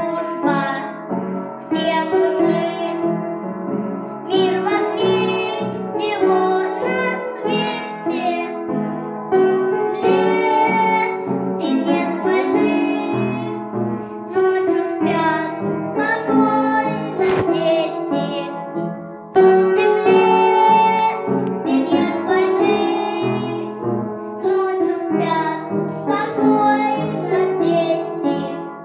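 A young girl, about six, singing a song over an instrumental backing track, her voice carrying the melody with phrases broken by short breaths.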